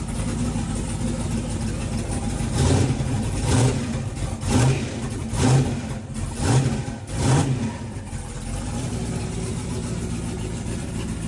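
Turbocharged race-car engine idling, then blipped about six times in quick succession, roughly once a second, before settling back to a steady idle.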